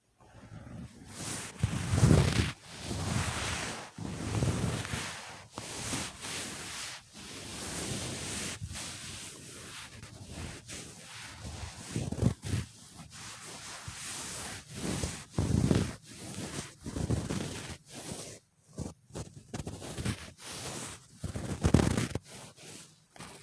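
Close-miked ASMR brushing or rubbing strokes, irregular and each lasting under a second, mixed with a few sharper taps.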